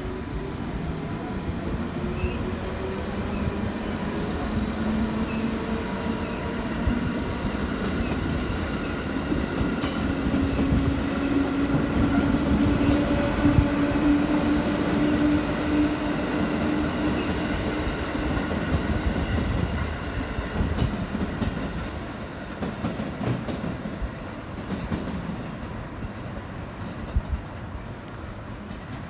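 JR West 221 series electric train pulling away and accelerating: the whine of its DC traction motors and gears rises in pitch over the wheels' rumble and clatter over the rail joints and points. It is loudest as the cars pass, then fades as the train draws away.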